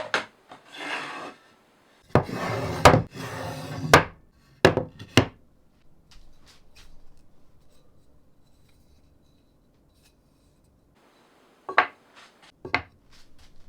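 Wooden workpiece and tools being handled: rubbing and sliding noises with several sharp knocks, faint ticking in the middle, and two more knocks near the end.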